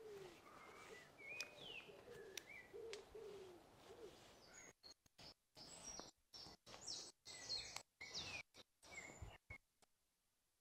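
Faint outdoor birdsong: small birds chirping, with low repeated cooing notes from a pigeon in the first few seconds. About halfway through, the sound starts cutting in and out, and it drops to near silence near the end.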